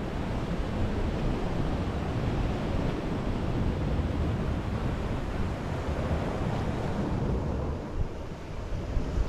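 Ocean surf breaking and washing over the rocks, with wind buffeting the microphone: a steady rushing noise that dips briefly about eight seconds in.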